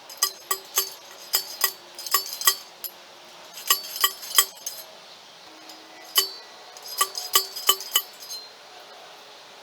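Metal clinking: one metal object struck or knocked about a dozen times in irregular groups, each strike ringing with the same bright tones.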